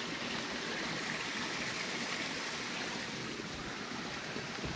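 Small woodland stream running with a steady rush of water.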